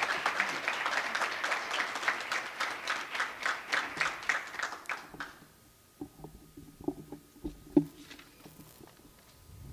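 Applause from a small seated audience, a dense patter of hand claps that dies away about five seconds in. A few soft knocks and shuffles follow.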